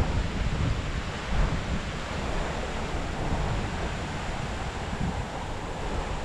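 Rushing water of a storm-swollen creek, with wind gusting against the microphone in irregular low rumbles.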